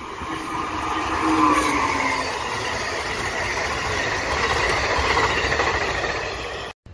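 Amtrak electric passenger train passing at speed: a rush of wheel-on-rail noise that builds over the first second or so, with a falling tone as the locomotive goes by, then the coaches rolling past steadily. The sound cuts off abruptly near the end.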